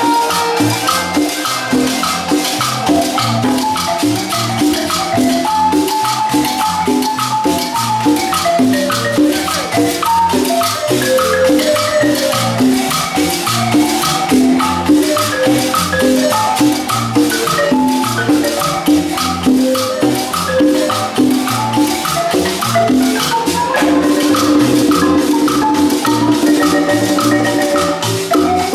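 Marimba played by several players at once, a quick dance tune in many fast notes, with conga drums and a shaker keeping a steady beat. A low note is held for the last few seconds.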